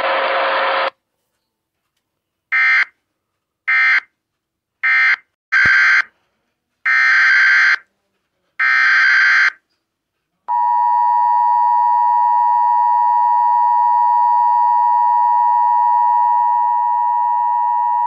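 Emergency Alert System tones. A noisy radio transmission cuts off about a second in. Six short warbling bursts of SAME digital header data follow, then the steady two-tone EAS attention signal starts about ten seconds in and holds for about eight seconds. It announces a civil authorities fire warning with a mandatory evacuation.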